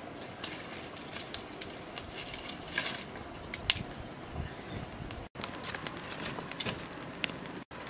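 Small wood fire of dry twigs and sticks crackling, with irregular sharp snaps and pops over a steady low hiss.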